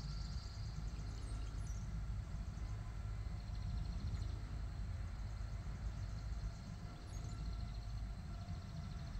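Wind rumbling on the microphone outdoors, uneven and loudest in the low range, with faint high chirps over it.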